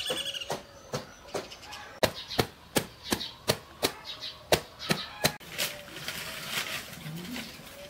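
A knife chopping and shredding a raw cabbage, about three sharp chops a second, stopping about five seconds in.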